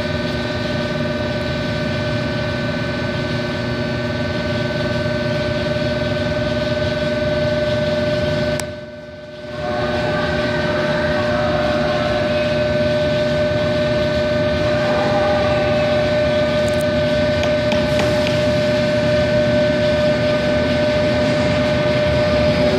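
Electric train standing at a station platform, its electrical equipment giving a steady hum of several fixed tones. The sound drops away briefly about nine seconds in.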